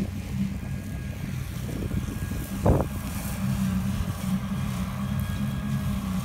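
Tractor engine running steadily under load at about 1400 rpm, driving a MAJOR CYCLONE rear-mounted sickle mulcher through its 1000 rpm PTO while it cuts rushes and grass. A brief thud comes about two and a half seconds in.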